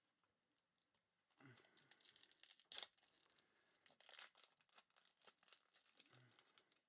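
Foil trading-card pack being torn open and its wrapper crinkled, faint and crackly, with one sharper rip a little under three seconds in; the first second and a half is near silence.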